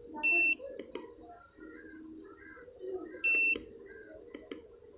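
Premium HD 8900 satellite finder meter beeping: a short, high, steady electronic beep twice, about three seconds apart, over a low background murmur with faint clicks.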